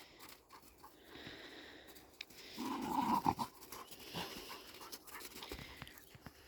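Dog panting while playing, with a louder spell about two and a half to three and a half seconds in.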